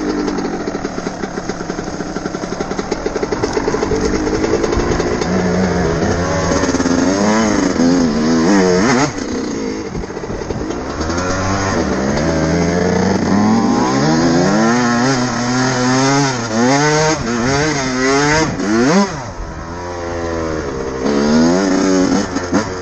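2000 Yamaha YZ125's 125cc two-stroke single-cylinder engine being ridden on a trail, revving up and falling back again and again as the throttle is worked, with the throttle chopped sharply twice. The engine is running cleanly, its jetting taken to be spot on.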